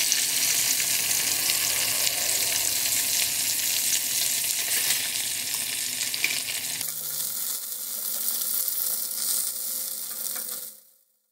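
Stuffed zucchini frying in hot oil in a pan: a steady sizzle and crackle. The sound changes abruptly about seven seconds in and fades out just before the end.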